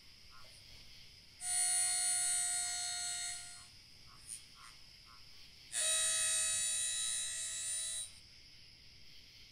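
Two passes of a sci-fi starship engine sound effect, each a steady, high buzz lasting about two seconds, over faint background chirps and clicks.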